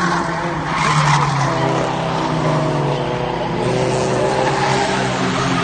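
Race car engines running hard at speed on a short oval track, with a steady engine drone and tyre noise.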